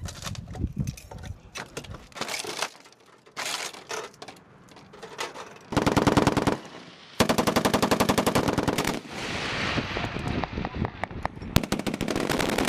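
M240B medium machine guns firing bursts: a short burst about six seconds in, a longer burst of about two seconds a second later with echo trailing off, and another sustained burst near the end. Quieter irregular noises fill the first few seconds.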